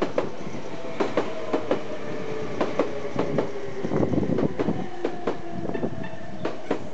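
A train passing slowly over a level crossing, its wheels clacking over rail joints in irregular pairs, with a steady rumble and a faint whine that slowly falls in pitch.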